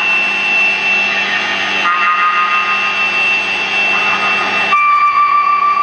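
Live noise music: a baritone saxophone holding long, horn-like notes over a dense, noisy wash of sound. The notes change pitch about two seconds in and again near five seconds.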